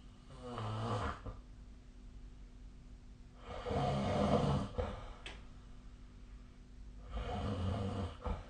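A person snoring in sleep: three snores about three and a half seconds apart, each lasting a second or so, the middle one the longest and loudest. A brief click follows the middle snore.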